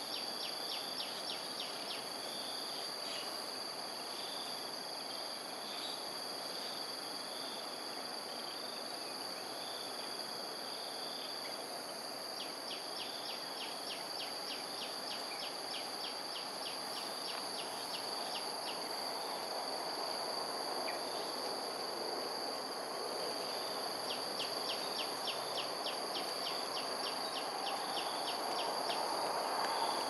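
Insects calling: a steady high-pitched drone with trains of rapid ticking pulses, about four a second, that come and go, over a steady background rush that grows slightly louder near the end.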